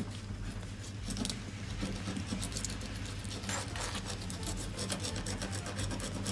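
Knife blade cutting and scraping through a conger eel's flesh and bones against a wooden cutting board: a continuous run of small, irregular scratching and crackling clicks.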